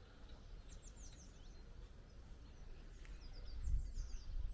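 Small songbirds chirping in short, quick runs of falling notes, about a second in and again near the end, over a low rumble that swells toward the end.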